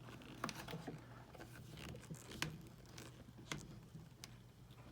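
Faint, irregular small clicks and scrapes of a flathead screwdriver prying under a round metal buckle washer on a plastic boot shell, with the buckle being worked back and forth.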